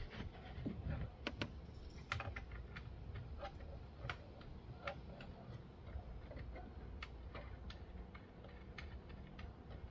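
Scattered, irregular light clicks and taps of hands handling the plastic trim and taillight fittings inside a car's trunk.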